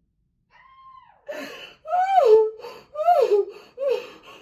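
A woman crying: after a brief silence, a thin high whimper, then a run of about four loud sobbing wails, each falling in pitch.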